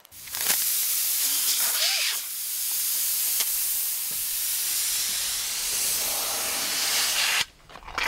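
Air hissing steadily out of a freshly punctured car tire that has sealant inside, stopping abruptly about seven seconds in.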